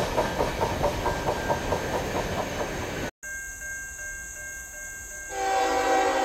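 Freight train wheels clicking over rail joints at about five clicks a second, cut off abruptly about three seconds in. After a quieter moment, an approaching Norfolk Southern freight locomotive's horn sounds as a steady multi-tone blast about five seconds in.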